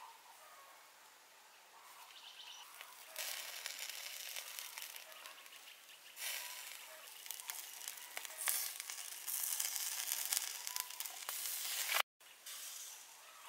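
Charcoal-grilled pig jaw sizzling and hissing as sauce is brushed onto the hot meat. The hiss starts about three seconds in, gets louder from about halfway, and cuts off sharply near the end before returning softer.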